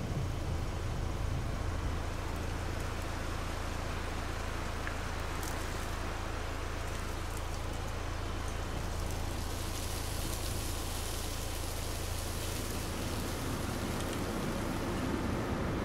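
Steady outdoor ambience: an even, rain-like hiss over a constant low rumble, with a few faint ticks and a brighter hiss for several seconds from around ten seconds in.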